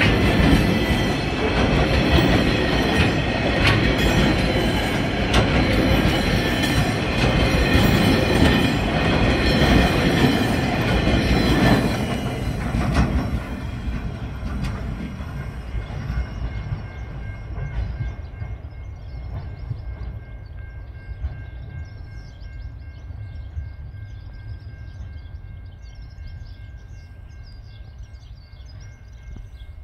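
Empty log wagons of a freight train rolling past at low speed: wheels clattering over the rail joints with a high wheel squeal. The last wagon passes about 12 seconds in, and the rumble then fades as the train draws away.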